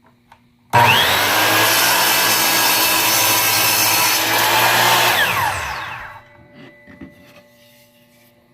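Delta Cruzer 10-inch sliding compound miter saw starting abruptly and running at full speed through a cut in epoxy and wood. About five seconds in the motor winds down with a falling whine, followed by a few light clicks.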